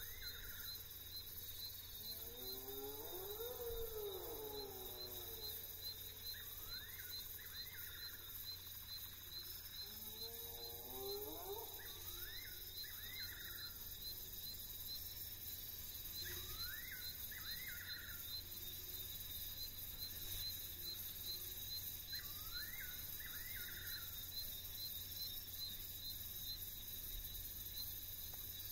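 Spotted hyena whooping twice, each long call rising then falling in pitch. Between the whoops a nightjar repeats short phrases of quick rising notes every few seconds, over a steady high-pitched drone of the night bush.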